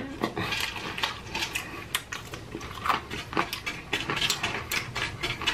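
Close-up crunching and chewing of crispy fried chicken: an irregular run of sharp crackles and clicks.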